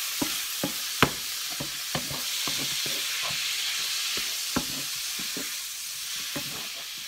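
Chicken and vegetables sizzling in a non-stick frying pan while being stirred with a wooden spoon: a steady sizzle with irregular knocks and scrapes of the spoon against the pan, the loudest knock about a second in.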